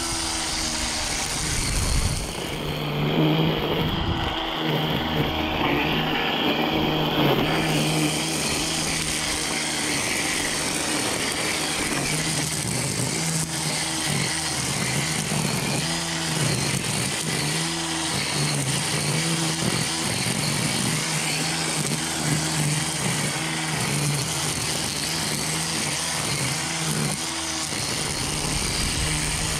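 DeWalt DCST922B 20V cordless string trimmer running steadily on its high speed setting, its nylon line whipping through grass and weeds.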